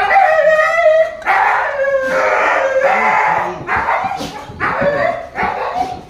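A goat bleating loudly over and over, about six long calls in a row with hardly a break between them.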